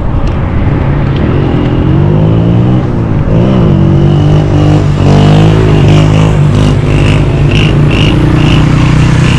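Motor traffic passing close by, led by a heavy truck's engine drone whose pitch rises and falls about halfway through.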